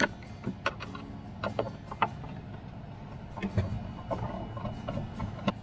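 Hand screwdriver backing out the small screws that hold an old boat DC switch panel in place, with irregular light metallic clicks and scrapes.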